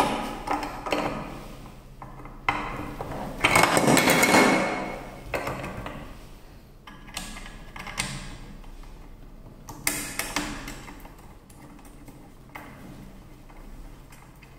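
Depth-of-cut lever and base plate of a Makita HS004G cordless circular saw being unlocked and moved by hand: mechanical clicks and rattles, the loudest a rattle of about a second near four seconds in, with single clicks later on.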